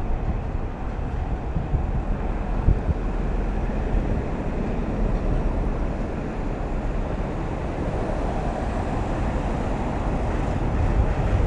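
Steady low rumble of a vehicle driving at speed on a highway: tyre and engine noise.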